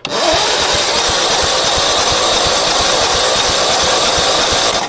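13-horsepower overhead-valve lawn mower engine being cranked by its electric starter for about five seconds, turning over in a steady rhythm of compression pulses without firing: the carburetor is dry of fuel.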